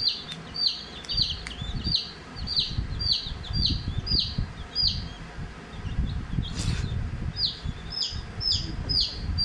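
Young chicks peeping: a steady run of short falling peeps, about two a second, pausing for a couple of seconds past the middle, over a low rumble.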